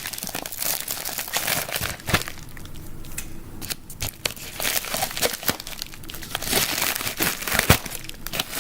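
Packaging being crinkled and torn open by hand, a continuous rustling with a few sharp clicks, one of them loud near the end.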